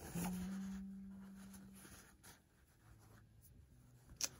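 Soft rustling and rubbing of a flannel cloth moccasin being handled and turned in the hands. A low steady hum fades away over the first two seconds, and there is a light click near the end.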